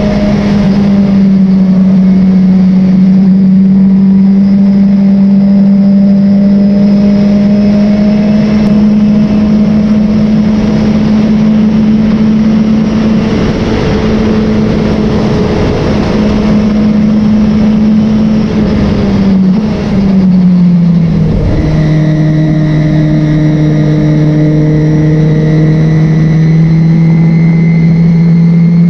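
Race car engine running hard at steady high revs; about twenty seconds in the pitch drops and it settles into a lower, steady note.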